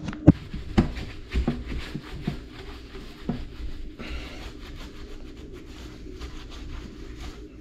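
A cloth rubbing and wiping over the ceramic top of a toilet pan, with a few sharp knocks in the first three seconds or so.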